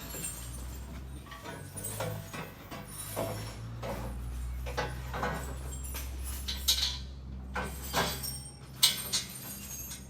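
Irregular metallic clinks and knocks of tools and metal parts being handled, some ringing briefly, over a steady low hum.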